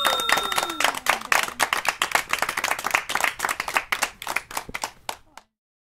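Outro sound effect: a bell-like ringing tone with a falling swoop dies away in the first second or so, over a burst of applause-like clapping that thins out and stops abruptly about five and a half seconds in.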